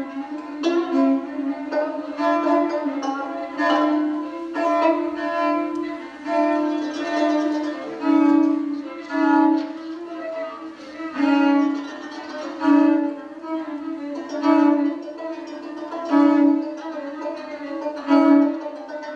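Instrumental music led by bowed strings over a sustained low note, swelling in pulses roughly every one and a half to two seconds.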